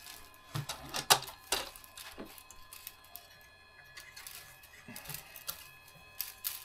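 A few sharp plastic clicks and light knocks as the filament spool is handled at the back of a Bambu Lab A1 Mini 3D printer. They come three close together in the first two seconds, then scattered ones later.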